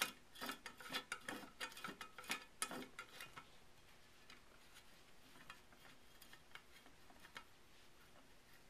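Long flat-bladed screwdriver turning the stock screw out inside the buttstock of a Remington 7600 rifle: a quick, faint run of clicks for about the first three seconds, then only a few scattered ticks.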